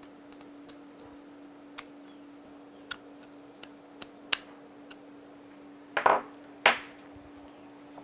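Scissors snipping stray copper braid wires on a coax cable end: a series of small sharp clicks, irregularly spaced. About six seconds in come two louder knocks with a short ring, over a faint steady hum.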